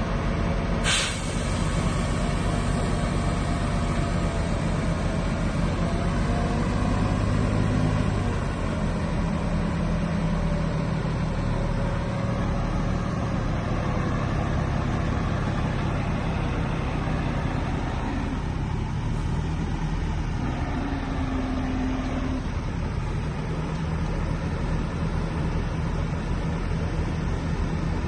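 Heavy diesel machinery running steadily, the engine note shifting under changing load. A brief sharp noise comes about a second in.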